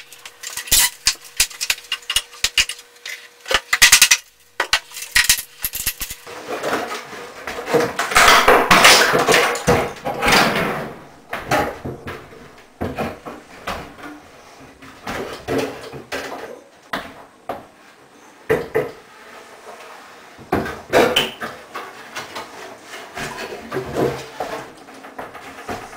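Knocks and taps on an old wooden kitchen wall cabinet as it is worked loose. About six seconds in comes several seconds of scraping and creaking as the cabinet is pulled free of the wall, then scattered bumps and knocks as the wooden cabinet is handled.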